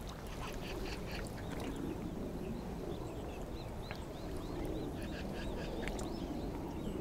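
Water sloshing around the legs of someone wading through shallow water, with a run of short, high bird calls from about two and a half seconds in.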